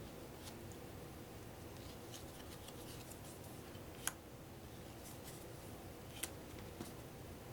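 Playing cards being handled and laid down one at a time: faint rustling with a few sharp card snaps, the loudest about four and six seconds in.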